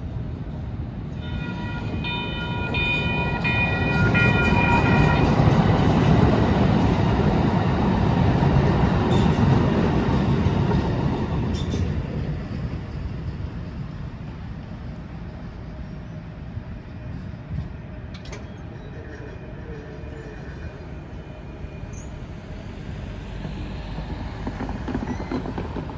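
A train passing over a railroad grade crossing. Its horn sounds a multi-note chord for a few seconds, then the heavy rumble of the passing train builds, peaks and fades away as it goes by.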